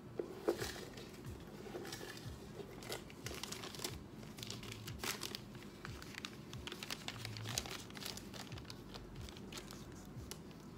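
Paper crinkling and rustling in irregular crackles as hands handle the tissue paper wrapped around a handbag's handles and a paper insert card.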